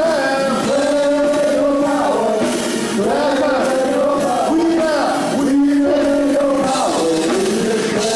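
Worship music with a voice singing long, held notes that slide between pitches.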